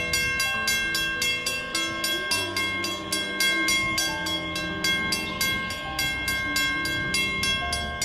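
Railroad grade-crossing warning bell ringing rapidly, about four strikes a second, as the crossing gates lower: the signal that a train is approaching.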